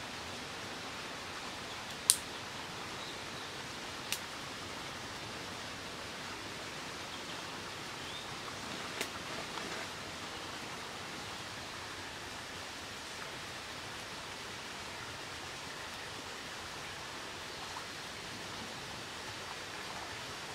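Steady outdoor hiss of running water or wind, broken by a few sharp snaps. The loudest snap comes about two seconds in, and smaller ones follow about four and nine seconds in.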